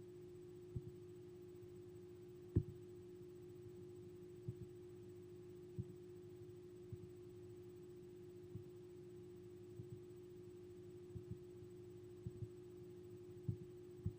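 Faint steady hum at one pitch, with soft clicks every second or so at irregular intervals.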